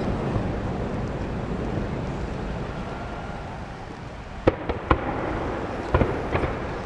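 Aerial fireworks display: a low rumble fades over the first four seconds. Then, from about four and a half seconds in, a quick series of sharp bangs comes as several small shells burst together.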